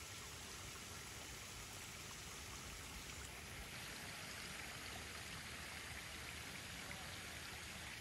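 Faint steady rush of running water, a little brighter in the second half.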